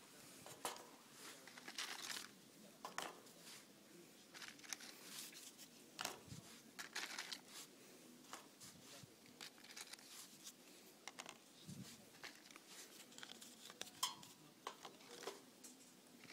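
Faint, irregular crinkling and rustling of milk cartons being handled, with scattered light clicks and clinks; one sharper knock comes late on.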